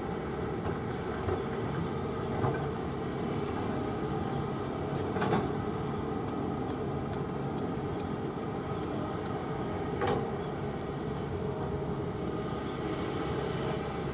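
Kobelco hydraulic excavator's diesel engine running steadily under work, with three short knocks at uneven intervals.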